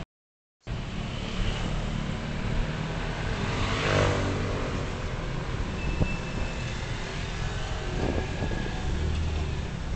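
Street traffic and engine noise: a steady low rumble of running engines and tyres after a brief dropout at the start, swelling louder about four seconds in as a vehicle passes close.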